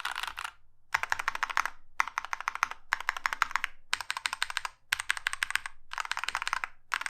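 Fast typing on a Prime_E 40% mechanical keyboard with lubed Drop Holy Panda tactile switches, ePBT keycaps and a foam-dampened acrylic plate and case. Quick runs of key clacks come in bursts of about a second, with short pauses between them.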